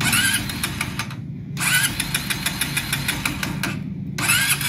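Honda Cargo 150's single-cylinder engine being turned over by its electric starter in three attempts. Each attempt opens with a rising starter whine, with short pauses between, and the engine fails to catch for lack of fuel.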